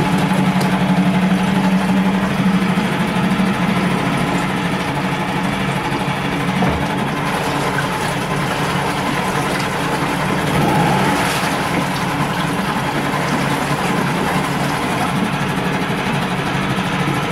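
Allfa CG F6 four-stroke outboard motor running steadily, a little louder in the first few seconds, with a slightly bassy note.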